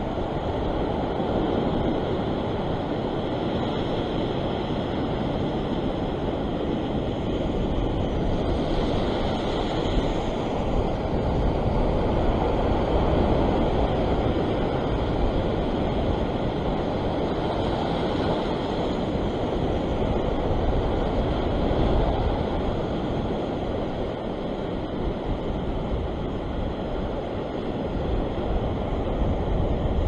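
Ocean swell breaking and washing over a rock platform, a steady rushing that swells and eases, with wind rumbling on the microphone.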